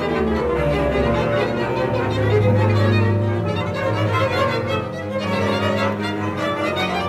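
Orchestra playing a contemporary piece whose parts were recorded separately online and layered loosely out of step: a dense wash of overlapping held notes from violins, cellos and double basses. A strong low note is held from about one second in to about four and a half seconds in.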